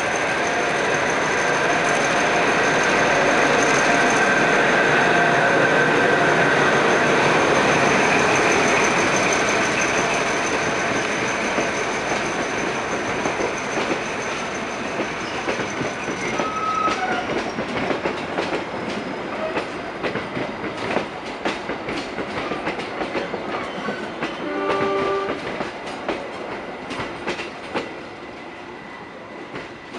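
Diesel locomotive passing with its engine loud over the first ten seconds, with a steady high whine. Then its passenger coaches roll by with a steady clickety-clack of wheels over rail joints, slowly fading.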